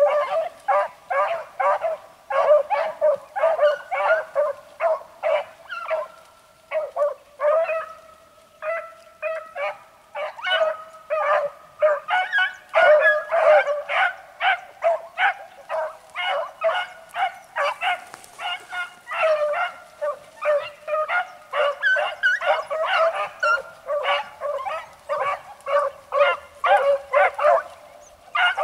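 A pack of beagles in full cry on a chase: a continuous jumble of baying and yelping from many hounds, with one young hound's big, loud voice standing out. A few longer, drawn-out bays come about a quarter of the way in.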